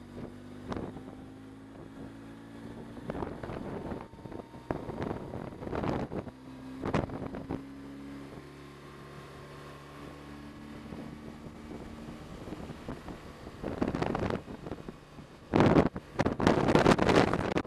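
BMW touring motorcycle's engine running at steady road speed, a low hum under wind buffeting on the helmet-camera microphone. The wind gusts loudly several times, loudest near the end.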